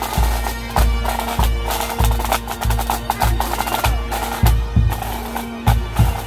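Pipe band playing: bagpipe drones hold a steady note under snare drum rolls, and the bass drum beats a little under twice a second.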